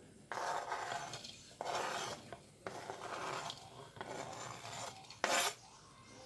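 A kitchen knife's blade scraping sliced green chilies across a plastic cutting board into a bowl: four scrapes of about a second each, then a shorter, sharper scrape about five seconds in.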